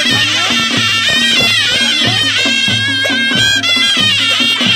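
A Nepali panche baja band playing: sahanai shawms carry a wavering, ornamented melody over a steady beat from the dholaki and damaha drums.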